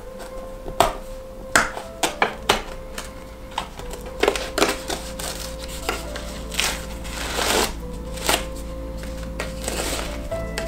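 Cardboard packaging and plastic being handled and opened: sharp clicks and taps in the first few seconds, then longer rustles, over quiet background music with held notes.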